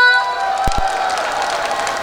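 Audience cheering and clapping, with two brief low thumps about two-thirds of a second in.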